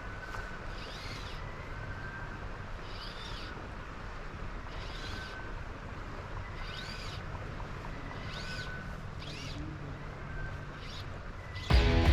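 A bird calling over and over, a short chirp that rises and falls, roughly once a second, over the steady low rush of river water. Music comes in loudly near the end.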